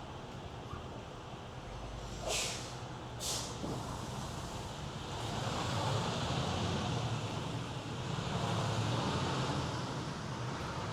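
Steady low rumble of a vehicle running, with road noise that grows louder from about five seconds in. Two short hissing swishes come about two and three seconds in.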